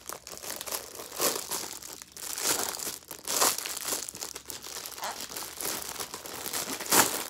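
Clear plastic packaging bag crinkling and rustling in irregular bursts as a duck-shaped pop-it fidget toy is pulled out of it, the loudest crinkle near the end.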